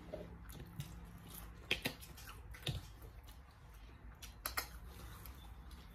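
Faint chewing and mouth sounds of a person eating, with a few soft clicks and smacks about two seconds in and again a little after four seconds.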